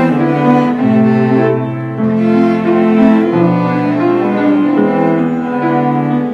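A cello ensemble with piano playing a slow piece: sustained bowed chords in several cello parts that move together to a new chord about every second, over a piano accompaniment.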